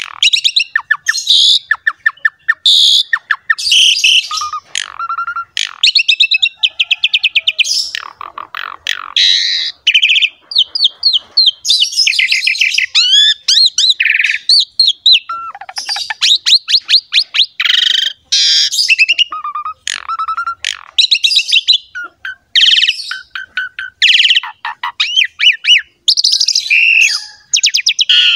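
Asian pied starling (jalak suren) in full, continuous song: fast rattling trills, short whistles and harsh chattering notes following one another with hardly a pause.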